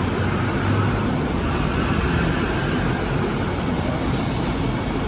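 Steady hum and rush of a Bombardier Innovia APM 100 rubber-tyred people-mover car standing at the platform with its doors open, its onboard equipment running before departure. A faint high hiss comes in about four seconds in.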